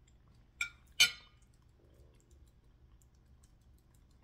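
Metal fork set down on a ceramic plate: two sharp clinks, the second louder and ringing briefly, then only faint small clicks.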